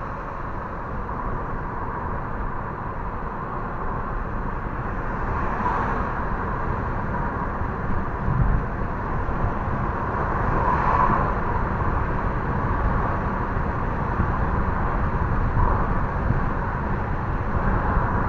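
Steady road, tyre and engine noise inside the cabin of a moving car at cruising speed: an even low rumble that grows a little louder over the stretch, with brief swells about six and eleven seconds in.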